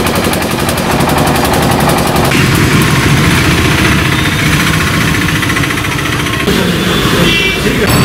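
An engine running close by with a rapid, even chugging beat, over steady street traffic.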